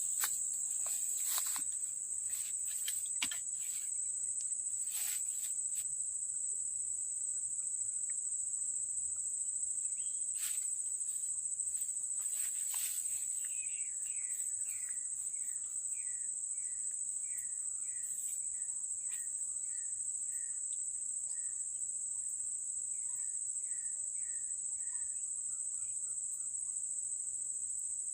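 Steady high-pitched drone of insects, crickets or cicadas, with scattered sharp clicks in the first half and a bird's run of short repeated chirps about halfway through and again near the end.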